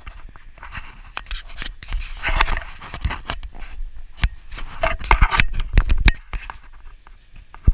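Camera handling noise: the microphone rubbing and scraping against coat fabric and a hand, with many sharp clicks and knocks.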